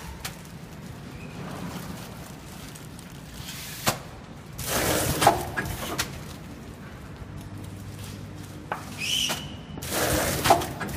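Breadstick packing machine running: a steady low hum, with a louder noisy surge twice, about five seconds apart, and a few sharp clicks in between.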